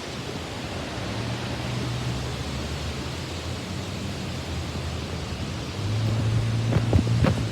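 Steady hiss of storm wind and rain, with a low hum that comes and goes and a few sharp knocks near the end.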